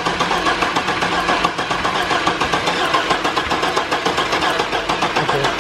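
1998 GMC Sonoma's 4.3 Vortec V6 being cranked over by the starter, turning over with a steady, rapid pulsing rhythm but not firing. It is a no-start, which the owners suspect is the distributor timing set wrong, perhaps 180 out.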